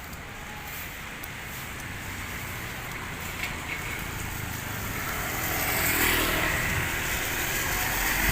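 Street traffic: a motor vehicle's engine and tyre noise growing louder as it approaches and passes, rising from about five seconds in.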